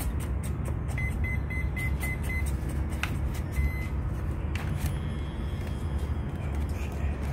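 The electric RC plane's speed controller sounding its start-up beeps after the flight battery is connected: six short high beeps in a row, then one longer beep, the usual cell-count-then-armed pattern. Under them a steady low rumble, with a few sharp clicks as the canopy is handled.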